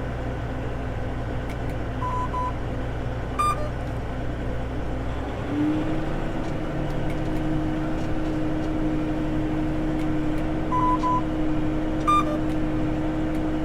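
Challenger MT965C tractor running, heard from inside the cab, with short electronic beeps from the cab's steering electronics: double beeps about two seconds in and again near eleven seconds, and single higher chirps about three and a half and twelve seconds in, alerts as the newly fitted autosteer fails to engage. About halfway through, the running note shifts: a steady hum rises slightly and holds.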